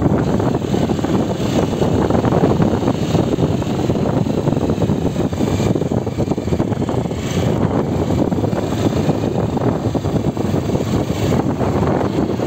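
Honda CG Titan 125 KSE's single-cylinder four-stroke engine running at a steady, even pace while the motorcycle is ridden, recorded from a phone on the handlebars.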